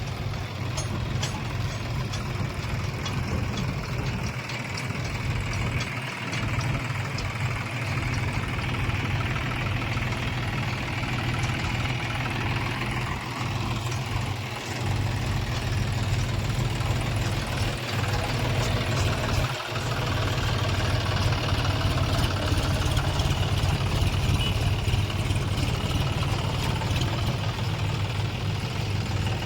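Diesel engine of a JCB 3DX backhoe loader running steadily while it digs and loads mud. A higher whine swells and fades during the first half.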